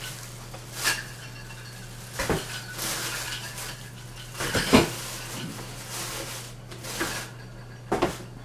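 Plastic shopping bag rustling, with a series of separate clinks and knocks as small items are packed into a plastic storage tote. The loudest knock comes nearly five seconds in, and a low steady hum runs underneath.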